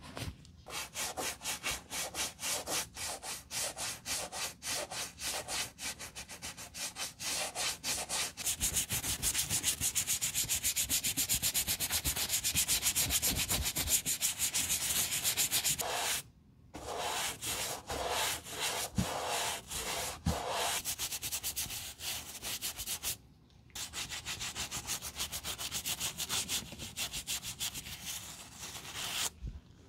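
Wooden-handled bristle brush scrubbing foamy cleaner over a Blundstone boot's leather in quick back-and-forth strokes, stopping briefly twice partway through.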